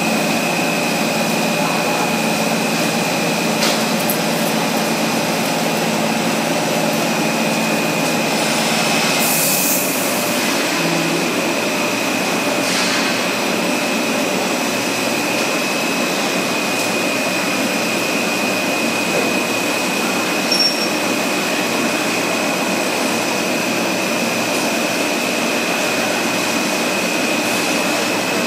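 High-speed stretch film production line running: a steady machine din with a constant high whine. A short hissing surge comes about nine seconds in and a fainter one around thirteen seconds.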